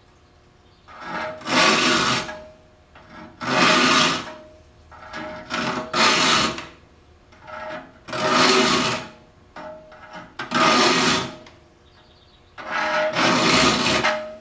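A saw file pushed across the teeth of a Disston D8 rip saw held in a saw vise: six rasping strokes about two seconds apart, each lasting about a second, the file lifted out between strokes.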